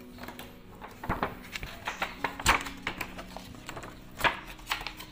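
Laminated plastic pouch being handled and flexed, crackling and clicking in an irregular run of sharp clicks, with louder knocks about a second, two and a half and four seconds in.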